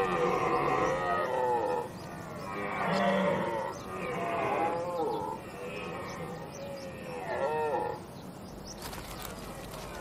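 Red deer stags roaring in the rut: several long, pitched calls that rise and fall, with a short one about three quarters of the way through.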